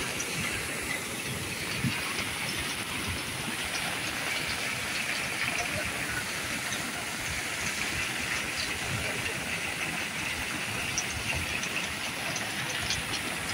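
Steady rushing hiss of a muddy river in flood, with faint scattered light ticks over it.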